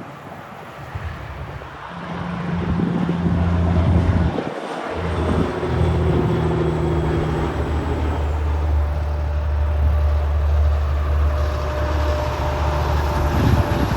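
Heavy truck's diesel engine running loud and close, a steady low drone that breaks off briefly about four and a half seconds in, then pulls on until it cuts off near the end.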